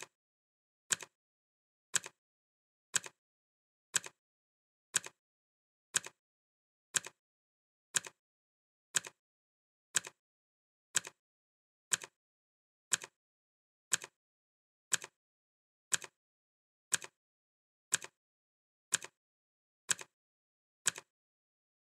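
Clock ticking evenly, one sharp tick every second, with silence between the ticks.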